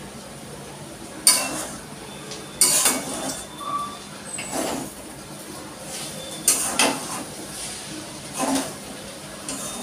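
Metal spatula scraping and knocking against a metal wok while noodles are stir-fried, a string of sharp clanks and scrapes at irregular intervals.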